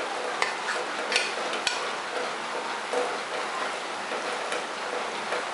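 Squid stir-fry in sauce sizzling in a nonstick pot over high heat while a wooden spatula stirs it, with several sharp knocks of the spatula against the pot.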